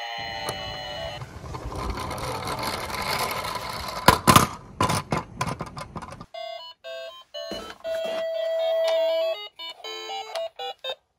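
A toy police van's electronic siren trails off, then its plastic wheels rumble down a wooden slope, with a clatter of knocks as it tumbles over onto its side. From about six seconds in, an Anpanman toy bus plays short electronic beep tones and a little melody, with one long held note, as its roof buttons are pressed.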